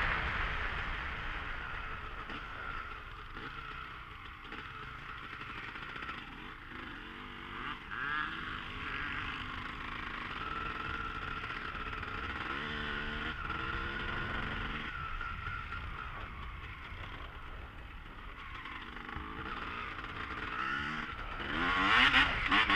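A motor vehicle running steadily, its pitch wavering now and then, getting louder briefly near the end.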